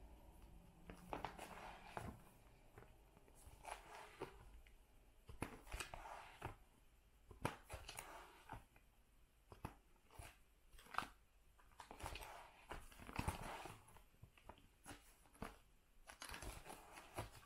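Faint rustling and crinkling of plastic binder pages and card sleeves, with scattered light clicks and taps at irregular intervals, as photocards are handled and pages turned.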